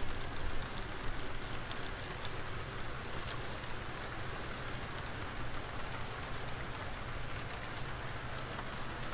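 HO scale model freight cars rolling along the track: a steady rumble of wheels on rail with light scattered clicking.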